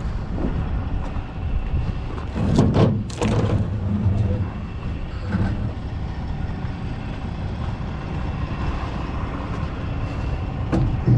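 Diesel truck engine idling with a steady low rumble, and a couple of sharp clanks about two and a half to three and a half seconds in.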